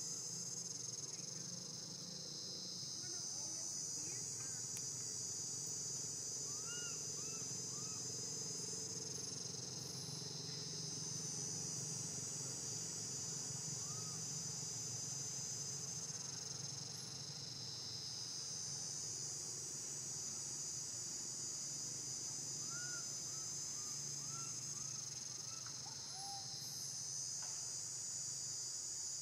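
Steady, high-pitched chorus of insects that swells and fades in slow waves every several seconds. A few short squeaky chirps rise over it now and then.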